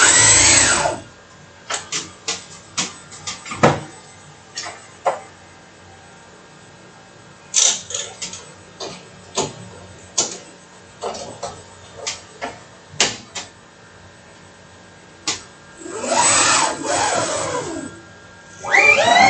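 A series of sharp, irregular clicks and taps, with a short rushing noise at the start and a longer one about sixteen seconds in.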